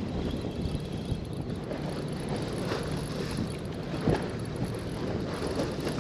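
Steady rumble of wind on the microphone with sea wash, broken by two soft knocks, about a second in and about four seconds in.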